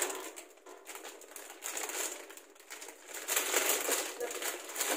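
Plastic packaging crinkling and rustling in irregular spells as it is handled and rummaged through.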